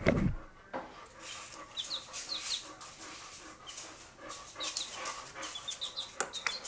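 A dog sniffing in short, repeated breaths close to the microphone, with baby chicks giving a few short, falling peeps. A low thump comes right at the start.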